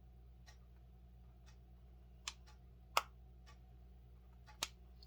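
Faint clock ticking steadily about once a second, with three louder clicks in the middle and near the end, over a low steady hum.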